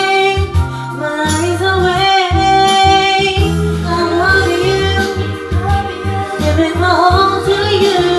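A woman singing a pop song into a karaoke microphone over a karaoke backing track, holding long notes that slide between pitches.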